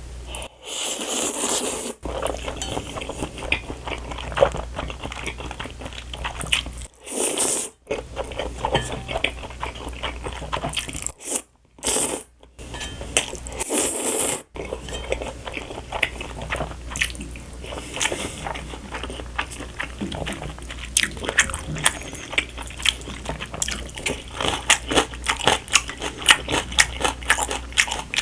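Close-miked eating of Buldak spicy stir-fried instant noodles: chewing and biting with a dense run of small clicks and crackles, broken by three short louder noisy bursts.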